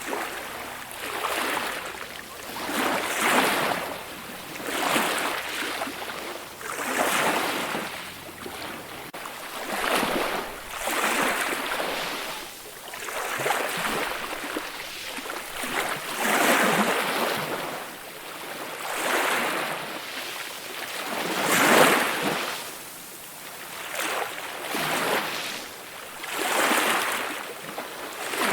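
Ocean waves breaking and washing ashore, the surf swelling and falling back every two to three seconds.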